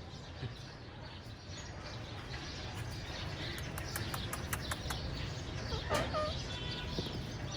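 Indian ringneck parakeet making soft short clicks and chirps, with one brief call about six seconds in, over a steady low background hum.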